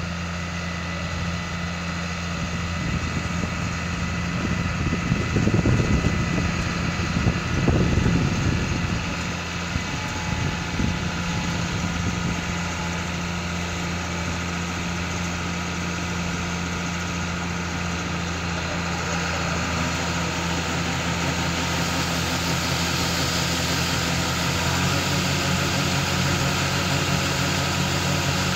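John Deere combine's diesel engine running steadily, with two brief loud rumbling swells several seconds in. In the last third a broad rushing hiss builds on top of the engine as the unloading auger runs and shelled corn pours into the grain truck box.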